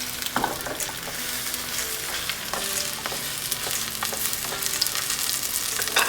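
Scallion pancake frying in a generous amount of hot oil in a skillet, the oil sizzling steadily with many small crackles and spits.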